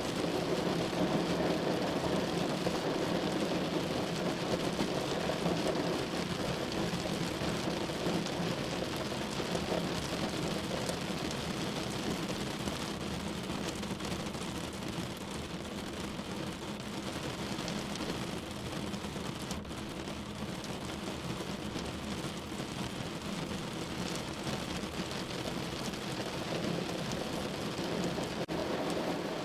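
Steady rushing noise like rain, with no separate events, easing slightly in the middle and building again near the end.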